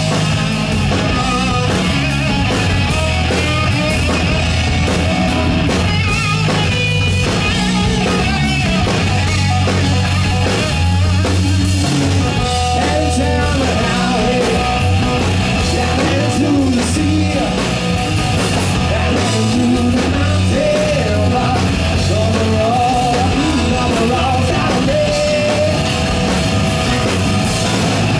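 Live rock band playing loudly: electric guitars and drums, with a voice singing.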